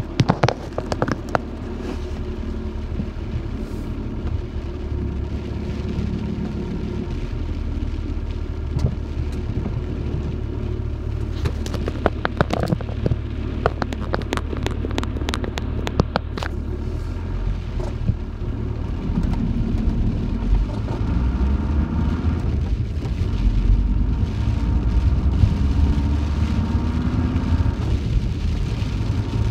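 Van driving in heavy rain: steady road and engine rumble with rain drumming on the roof, and a dense cluster of sharp taps about twelve to sixteen seconds in. In the second half the engine note rises several times as the van picks up speed.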